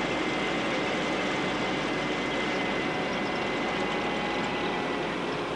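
A vehicle driving: steady engine and road noise.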